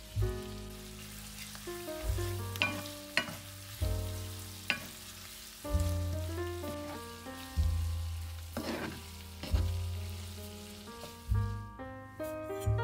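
Food sizzling as it fries in a pan, stirred, with a few sharp clicks of a utensil against the pan. Background music with slow, held bass notes and piano-like tones plays over it.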